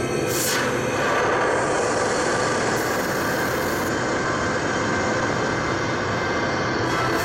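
A loud, steady, dense rumbling roar from a dark soundtrack, with faint held tones underneath and a brief hiss about half a second in.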